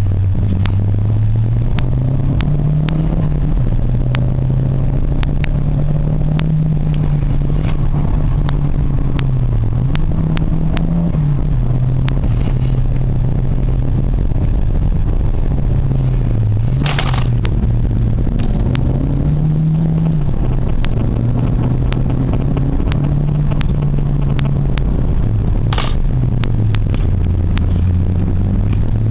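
Renault 5 GT Turbo's turbocharged four-cylinder engine under hard load on a hill climb, revving up and dropping back again and again as it works through the gears. There are frequent sharp clicks and rattles, and two short hisses, the first about halfway through and the second near the end.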